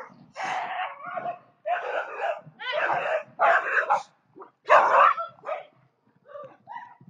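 Dogs barking over and over in a run of calls, each about half a second long, the loudest about five seconds in.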